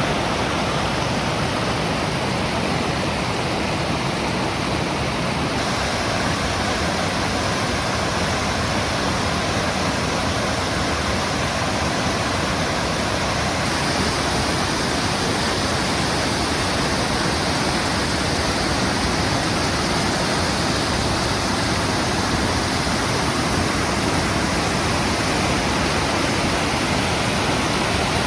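A waterfall's steady rush of falling water, a loud, even hiss that does not let up.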